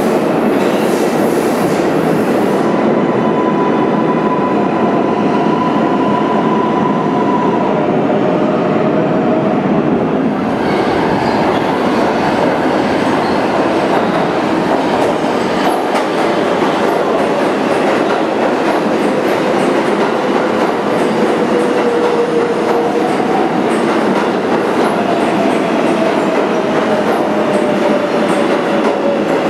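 New York City Subway 7 train running, heard from inside the car: a steady rumble and rattle of wheels on track, with a faint whine that slides slowly lower in pitch near the end.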